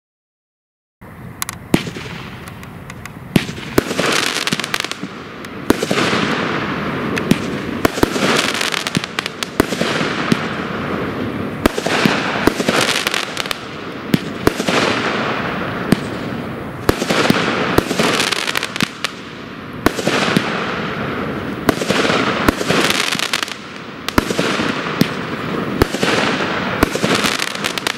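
Pyro King Wild Stallion 16-shot fireworks cake firing, starting about a second in: shot after shot every one to two seconds, each a sharp bang followed by a loud hiss that fades before the next. The box calls these flaming balls with reports.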